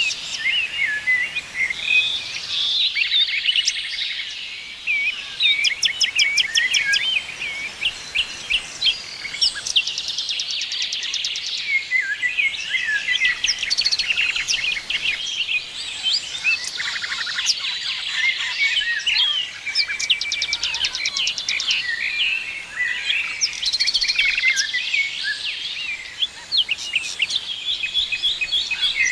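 A dense chorus of several songbirds singing at once: overlapping chirps, whistled notes and fast, rattling trills, with no let-up.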